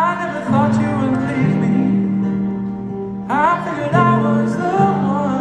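Live band playing: strummed acoustic guitar and electric guitar under a man singing, with a sung phrase at the start and another about three seconds in.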